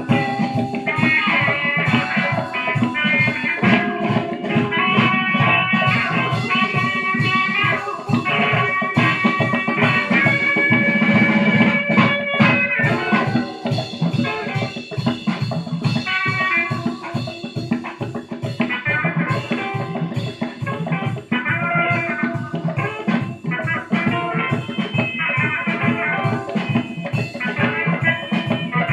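A 1978 band recording playing: electric guitar and drum kit over a bass line, with held melodic lead lines and a busy, steady beat.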